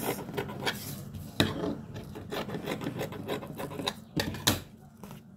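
Scissors cutting through lining fabric: a run of irregular snips and scraping, with sharper clicks about a second and a half in and again near the end.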